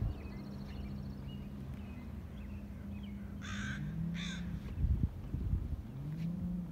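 Two harsh bird caws, crow-like, about three and a half and four seconds in, over a steady low hum that rises in pitch now and then. Low thumps of camera handling from walking come about five seconds in.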